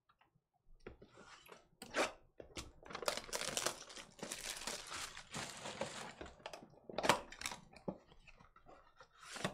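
Clear plastic shrink-wrap being torn and crumpled off a sealed trading-card box: a dense crinkling crackle, with a sharp rip about two seconds in and another about seven seconds in.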